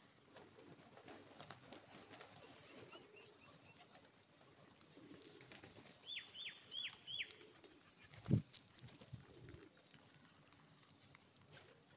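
A flock of rock pigeons feeding, with soft low cooing now and then among faint pecking and wing-flutter clicks. About six seconds in come four quick high chirps, each falling in pitch. Just after eight seconds there is a single dull thump, the loudest sound.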